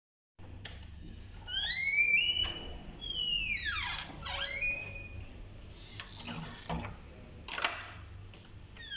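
A door's hinge creaking in squeals that step up in pitch and then slide down as the door swings open, followed by a few sharp clicks and knocks from the lock and door.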